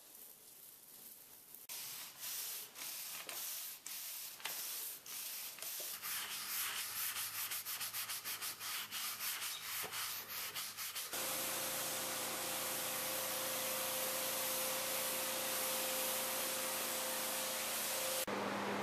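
A stiff brush scrubs a concrete garage floor in back-and-forth strokes that come faster and closer together as it goes on. About eleven seconds in, a pressure washer takes over: a steady hiss of water spray on the concrete with a steady machine tone under it.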